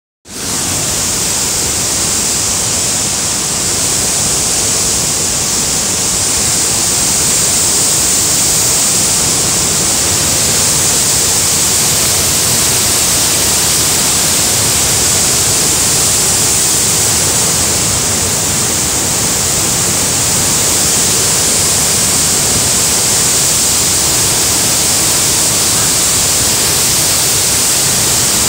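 Waterfall in flood, a torrent of water pouring and crashing with a loud, steady, hissing rush.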